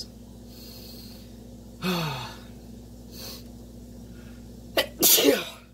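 A man building up to a sneeze: a drawn-in, voiced "ahh" with a falling pitch about two seconds in and a faint breath, then one big sneeze near the end.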